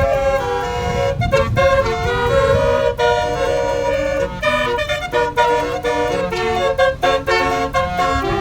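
Multi-tone 'telolet' bus horn playing a quick melody of held notes, over a low engine and road rumble.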